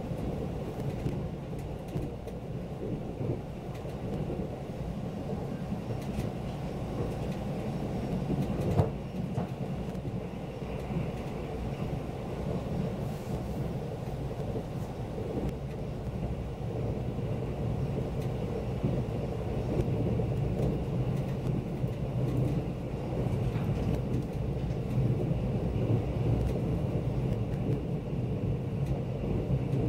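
KTX train running at speed, a steady low rumble heard inside the passenger car, with a single short knock about nine seconds in. The rumble grows a little louder in the second half.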